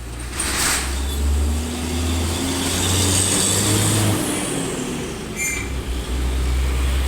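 Heavy diesel truck passing on the road: a low engine rumble with a drone that rises then falls in pitch and road noise that swells and fades. A short high squeal comes about five and a half seconds in.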